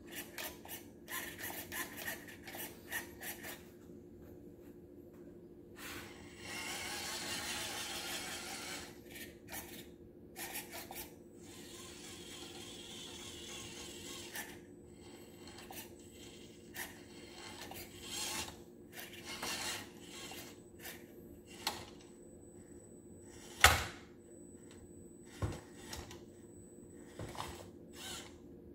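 Small C-24 RC crawler truck driving in short runs on a countertop: its electric motor and gears running in stretches of a few seconds, with scraping, clicking and clattering as its tyres and chassis climb over chrome metal parts. One sharp knock about two thirds of the way through is the loudest sound.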